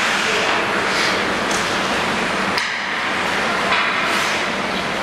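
Ice skates scraping and swishing on rink ice, with one sharp clack about two and a half seconds in.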